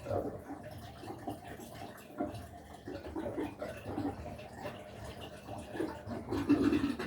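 Washing machine running, with water and laundry sloshing unevenly in the drum.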